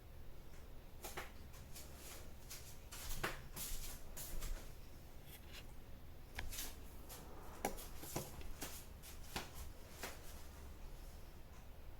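Scattered light clicks and rustles of small things being handled.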